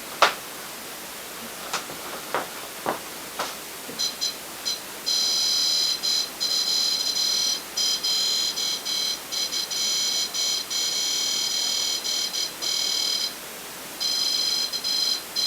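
Electronic alarm of a ghost-hunting proximity box, set off when something comes close to its antenna. A high tone of several pitches at once starts in short blips about four seconds in, then sounds in long choppy bursts, stops briefly near the end and starts again. A few sharp clicks come before it.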